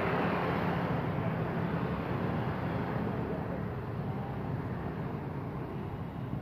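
Street traffic: motorcycles and cars running past on the road, a steady rumble that slowly fades.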